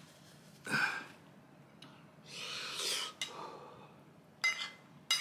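A man blowing his nose into a tissue, a noisy blast about a second long, his nose running from very spicy curry. Near the end a spoon clinks twice against a plate.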